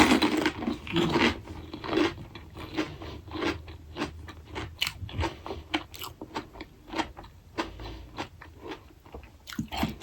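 Close-miked biting and chewing of pani puri: the crisp fried puri shells crack and crunch between the teeth in a quick, irregular series of short snaps, the loudest bite right at the start.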